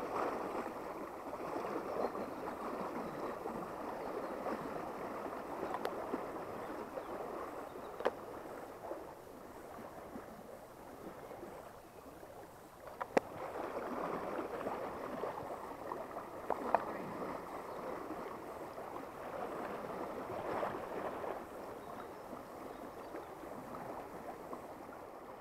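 Shallow river current rushing and splashing close by, swelling and easing. A few short sharp clicks sound over it, the loudest just after halfway.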